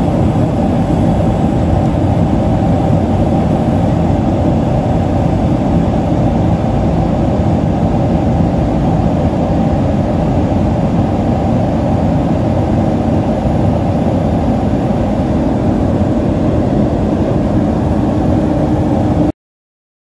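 Steady engine and airflow noise inside the cabin of a Boeing 767-300ER in flight, heard from a window seat over the wing. The noise cuts off abruptly near the end.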